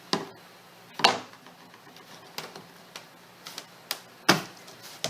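Irregular sharp knocks and taps as a cracked fiberboard back panel is worked loose from a wooden cabinet frame. There are about six knocks, the loudest about a second in and just after four seconds.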